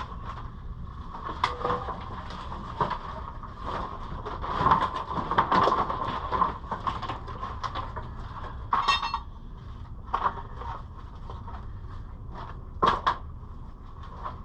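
Irregular knocks, scrapes and crunching of wood and debris being worked by hand, busiest about five seconds in, with a ringing metal clink near the nine-second mark.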